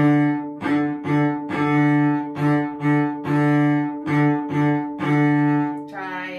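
Cello bowing a single low note, likely the D string, over and over in a short-short-long rhythm: two quick strokes, then a held note, about three times. Near the end the bowing stops.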